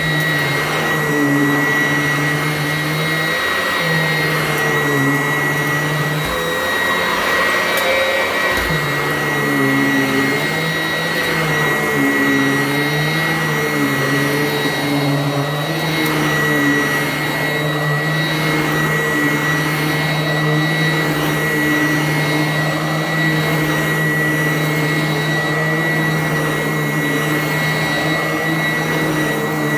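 Sanitaire vacuum cleaner running steadily, with a high motor whine and a lower hum that wavers up and down in pitch.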